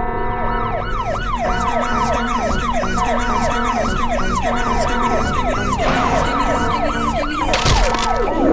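A siren-like electronic wail, a quick rise-and-fall glide repeating about two and a half times a second, over steady sustained chord tones in a meme music mash-up. A sharp thump with a hiss comes near the end.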